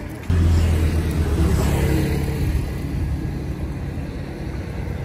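A vehicle engine running loud nearby, starting suddenly about a third of a second in and easing off over the next few seconds.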